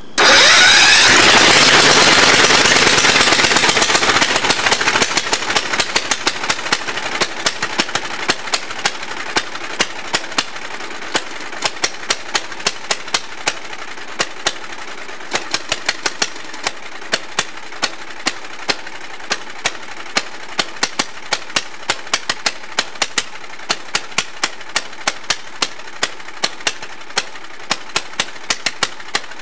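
Small vertical-shaft lawn tractor engine bursting into life and running flat out, with its governor frozen and stuck at high revs: a runaway engine. It is loudest in the first few seconds, then holds a steady high-speed run broken by sharp pops, a few each second.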